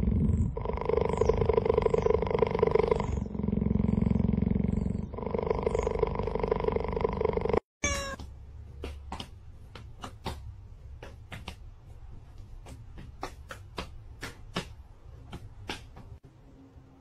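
Cheetah purring loudly and continuously, the purr switching every two seconds or so between a deeper and a higher phase as it breathes in and out. About eight seconds in it cuts off suddenly, and a short rising chirp is followed by a run of sharp clicks, about two a second.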